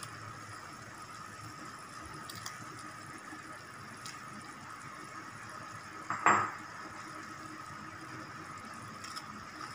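Tom yam broth bubbling steadily in a stainless steel pot as carrot slices are dropped in, with a few faint clicks and one brief louder sound about six seconds in.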